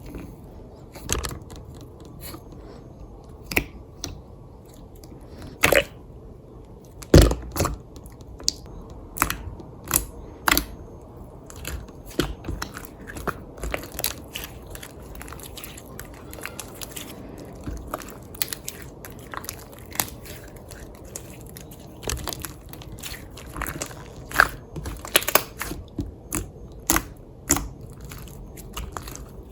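Hands pressing and squishing a soft slime, giving irregular sticky pops and crackles, some louder than others.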